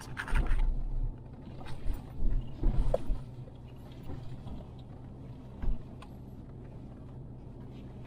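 Vehicle engine running steadily, heard from inside the cab while driving over a rough, rocky dirt track. Several low thumps and knocks from the bumpy ride come about half a second in, between two and three seconds in, and once more near six seconds.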